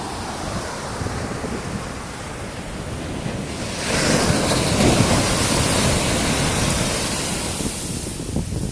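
Ocean surf on a beach with wind on the microphone; a wave breaks about four seconds in and its wash runs on loudly for a few seconds before easing.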